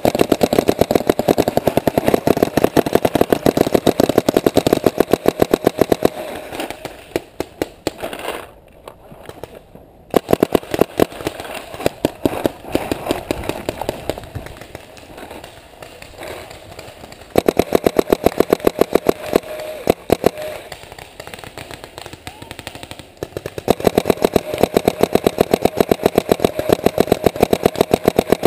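Paintball marker firing in long, rapid strings of shots, about four strings with short pauses between them.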